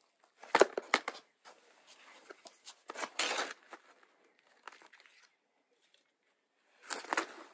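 Rustling, crinkling handling noise in irregular bursts, loudest about half a second in, around three seconds in and near the end.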